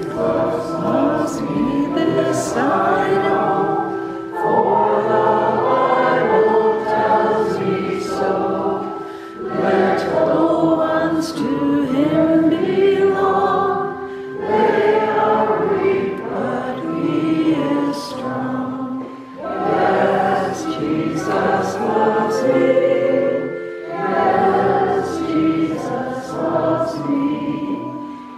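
A congregation singing a hymn together in phrases of a few seconds, with keyboard accompaniment.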